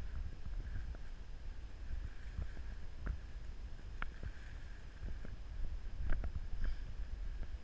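Low rumble of wind and handling noise on the microphone of a camera carried down a dirt trail, with scattered soft clicks and knocks, a few of them clustered about six seconds in.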